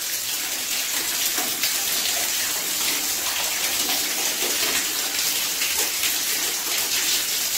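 Mains water running steadily through a hose into a towel-rail radiator as it is flushed out, spraying at the valve fitting and splashing into a bucket: a steady rushing hiss.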